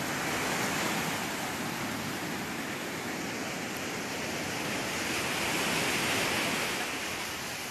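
Sea surf breaking and washing up a sandy beach: a steady rush that swells near the start and again about five to seven seconds in.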